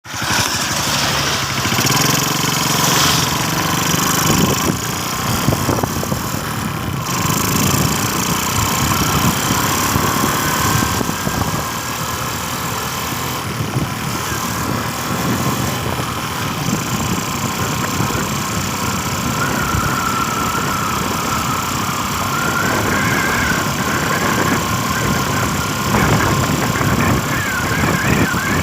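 Steady rush of rain mixed with a running vehicle engine, with a faint wavering whine in the second half.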